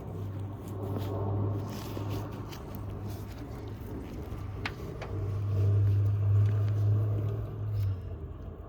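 A low steady mechanical hum, swelling louder twice, with a few light clicks.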